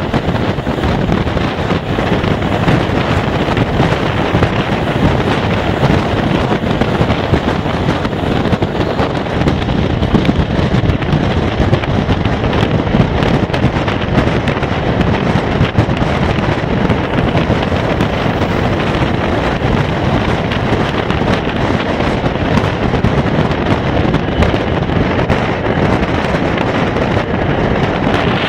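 Loud, steady wind buffeting on a microphone held out of a moving passenger train, mixed with the rumble of the train rolling along the track at speed.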